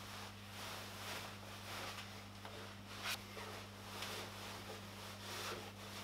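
Soft fabric rustling of a scarf being wrapped and adjusted around the neck over a coat, with a single faint click about three seconds in. A low steady hum runs underneath.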